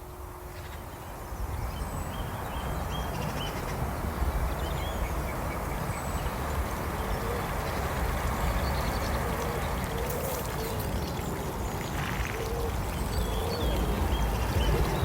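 Outdoor ambience: a steady rumble of wind on the microphone, with scattered short bird calls over it.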